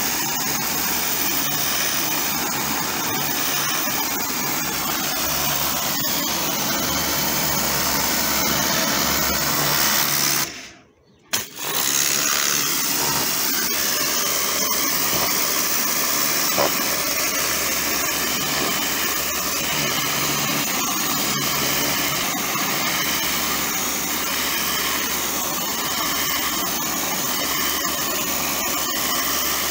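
Kärcher high-pressure washer running steadily, its jet spraying water against a concrete wall. The sound breaks off abruptly for about a second roughly a third of the way in, then carries on.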